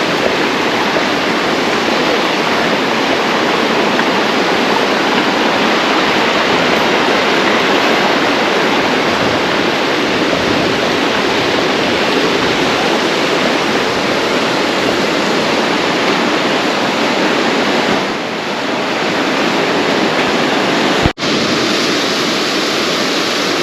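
Steady rush of water from a tall waterfall, falling water heard up close, with a momentary break about three-quarters of the way through.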